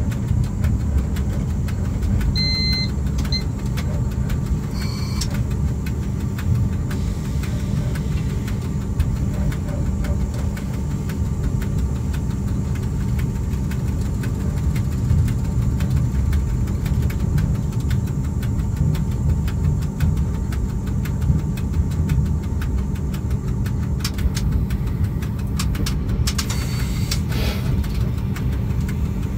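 Cab of a ChS4 electric locomotive under way: a steady low rumble of the running locomotive and its wheels on the rails, with fine rapid clicking throughout. A brief high beep sounds about two and a half seconds in.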